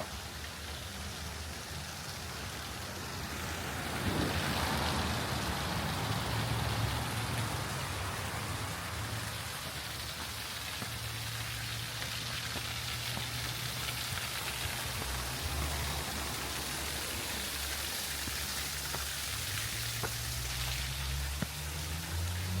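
Outdoor ambience: a steady rain-like hiss, louder from about four seconds in, over a low engine-like hum that comes and goes and rises in pitch near the end.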